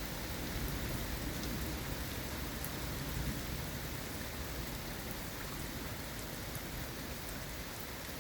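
Steady rain falling in a thunderstorm: an even hiss with a few sharper drop ticks.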